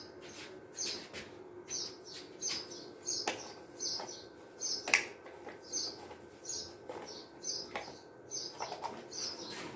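Small birds chirping over and over, short high chirps about twice a second, with a few sharp clicks and knocks from handling.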